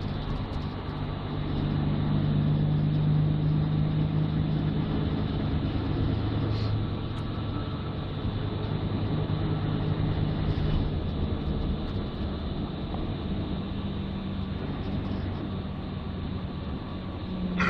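City bus running, heard from inside the passenger cabin: a steady low engine and road drone that is louder between about two and five seconds in. A short sharp click comes near the end.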